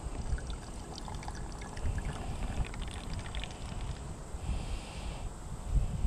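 River water trickling and dripping out of an inline water filter into a plastic water bottle, gravity-fed from an upturned pop bottle, with scattered small drips and splashes.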